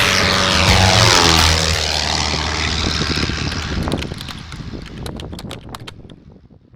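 A passing engine drone that drops in pitch, like an aircraft flying by, then fades away over several seconds.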